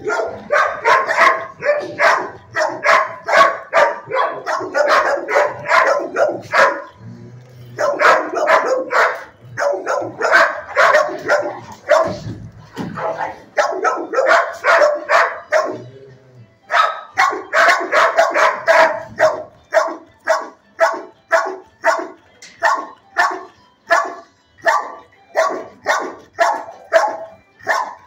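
A dog barking over and over, about two barks a second, in long runs with two short breaks.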